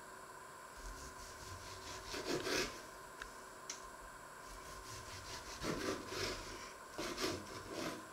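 Kitchen knife slicing a tomato on a wooden cutting board: three short bouts of sawing cuts, the first about two seconds in and the last two close together near the end, with a few light taps between.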